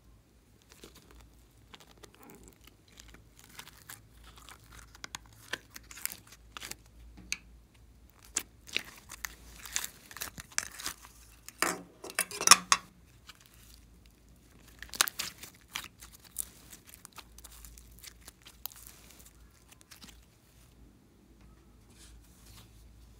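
Thick blue slime squeezed out of a rubbery squishy ball and pressed into a dish of slime, making a run of short sticky crackles and pops. The crackles are loudest about halfway through and die away near the end.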